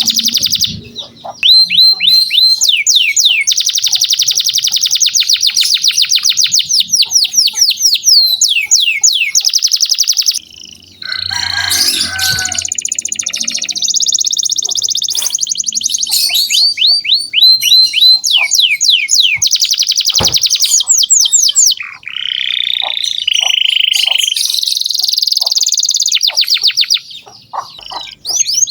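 Canary singing a loud, continuous song of fast trills and rapid runs of repeated downward-sweeping notes, with two short breaks. It is a canary in full, vigorous song ('gacor').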